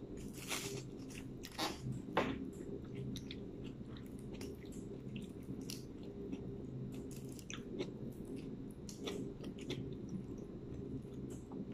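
Mouth sounds of a person eating fried fish and rice by hand: chewing with many small wet smacks and clicks, over a steady low hum.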